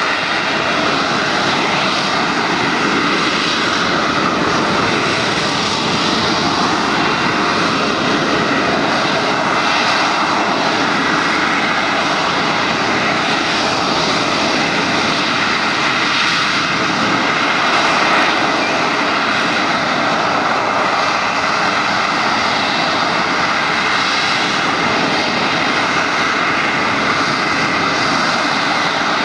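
Sea Harrier's Rolls-Royce Pegasus vectored-thrust turbofan running at high power to hold the jet in a hover. The jet noise is loud and steady, with a steady whine laid over it.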